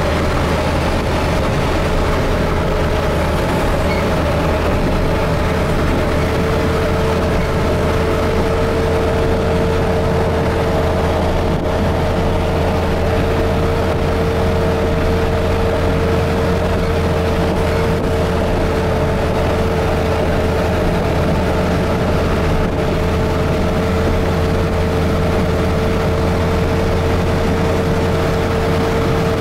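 Truck engine and road noise heard inside the cab while cruising at steady highway speed: an unchanging drone, a low rumble with a steady mid-pitched tone over it.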